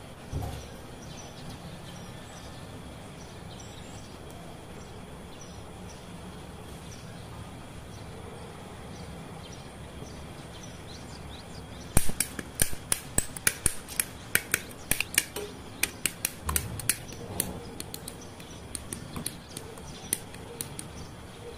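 Hobby side cutters snipping plastic model-kit parts off the runner, with plastic parts clicking: a run of sharp, irregular clicks and snaps, several a second, starting about halfway through, after a stretch of faint steady background hiss.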